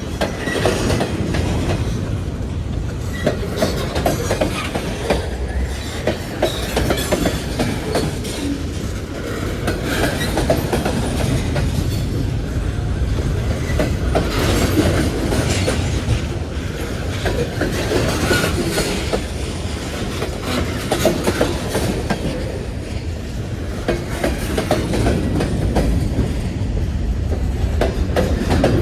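A freight train rolling past at close range: a steady low rumble from the cars, with repeated clicks and knocks of wheels passing over rail joints.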